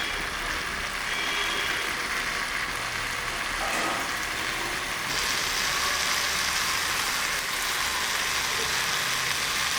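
Marinated chicken frying with spice masala in hot oil in a pan: a steady sizzle that grows louder about five seconds in.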